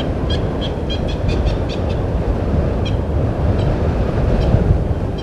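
Blacksmith lapwing calling: a quick run of sharp, metallic 'klink' notes, about eight in the first two seconds, then a few more spaced farther apart. Under the calls runs a steady low rumble, loud throughout.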